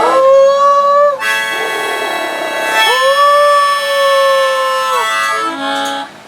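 Harmonica playing a tune: long held notes that bend in pitch where they start and stop, with a fuller chord between them and a few short notes near the end.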